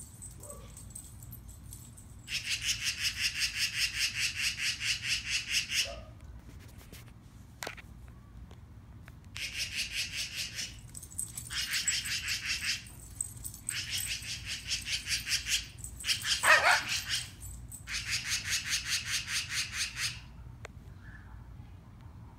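Magpie giving its rapid, harsh chattering call in repeated bouts of a few seconds each, the bird's scolding 'laughing' at a dog. About two-thirds of the way through there is one louder rising cry.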